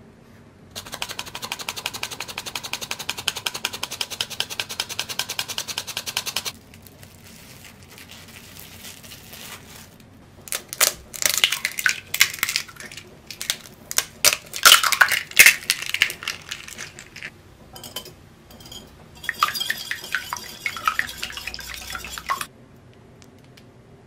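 A wire whisk stirring dry flour in a wooden bowl, a rapid, even scratching for several seconds. Then eggs are cracked and dropped into a glass bowl with loud sharp knocks, and a wire whisk beats them, clinking against the glass.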